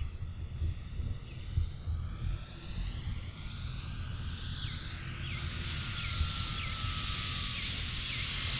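Electric motor and propeller of a large FMS Extra 330 RC plane on 12S, whining with a gently falling pitch as it is throttled back on the landing approach, growing louder with a rush of air as it comes in low and close.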